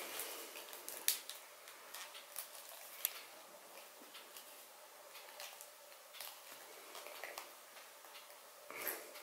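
Faint clicks and rubbing of hands gripping and twisting the plastic handle of a Philips Sonicare electric toothbrush, trying to work its bottom cap loose. A sharp click about a second in and another about three seconds in, with a short rustle near the end.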